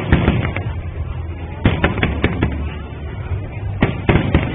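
Aerial firework shells bursting: about ten sharp bangs in small uneven clusters, over a steady low rumble.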